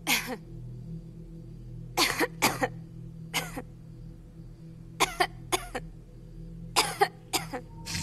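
A person coughing in short bouts, about eight coughs, several in quick pairs, over a low steady ambient music drone.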